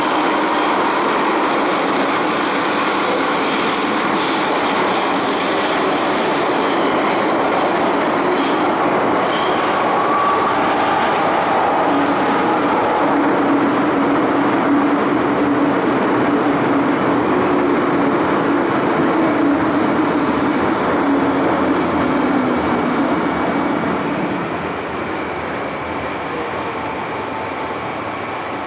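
MTR M-Train metro car heard from inside while running at speed through a tunnel: a steady rumble of wheels on rail, with high-pitched whining tones over the first several seconds. About 24 seconds in the noise drops off as the train slows.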